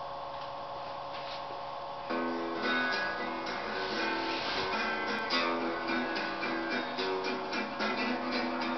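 Background music on guitar: a steady held chord, then plucked guitar notes coming in about two seconds in and carrying on.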